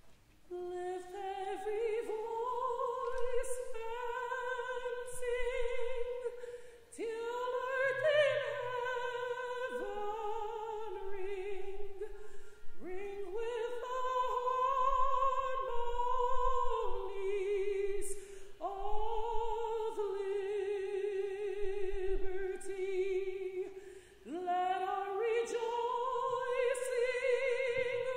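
A lone, unaccompanied voice singing a slow melody in long phrases with wide vibrato, sliding up into the first note of each phrase.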